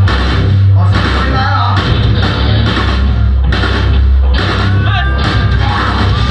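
Metalcore band playing live and loud: distorted electric guitars and bass over drums, with a heavy, sustained low end.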